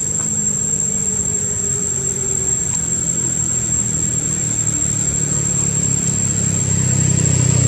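Steady low engine-like drone, as of a motor running at idle, under a continuous thin high-pitched whine; the drone grows a little louder near the end.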